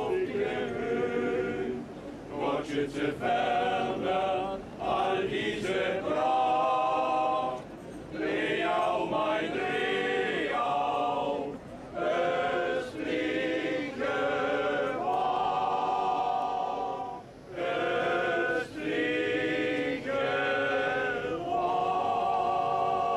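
Men's choir singing unaccompanied in harmony, in phrases with short breaks for breath, ending on a long held chord.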